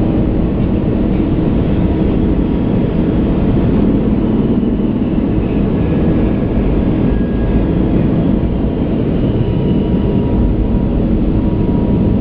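Steady noise inside an Airbus A380 cockpit climbing out at takeoff thrust: a dense, low rush of airflow and engines at an even level, with a few faint steady tones above it.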